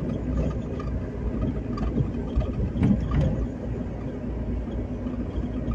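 Steady rush of wind and road noise in a moving open-top convertible, mostly low in pitch.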